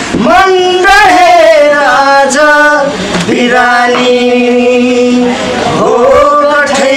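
A man singing a slow Nepali song, drawing out long held notes, with one note held steady for over a second about four seconds in.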